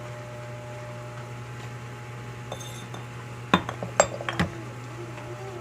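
Cookware clinking: a quick run of three or four sharp clinks, like a utensil knocking against a pot, over a steady low hum.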